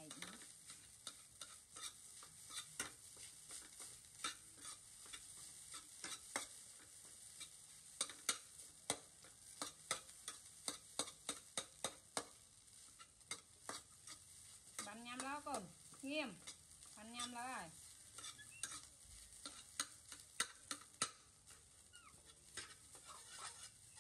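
Metal spatula scraping and knocking against a stainless pan as rice is stir-fried, over a steady sizzle from the pan on a portable gas stove. Around the middle, three short calls from a voice rise and fall in pitch.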